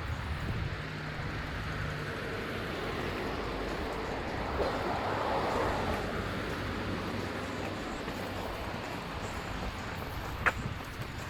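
Steady outdoor ambience of a seaside promenade: a low rumble under a hiss, swelling briefly about five seconds in, with one sharp click near the end.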